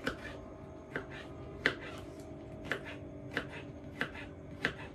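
A kitchen knife chops cucumber on a plastic cutting board. About seven separate knife strikes come roughly every two-thirds of a second, each a sharp tap of the blade through the cucumber onto the board.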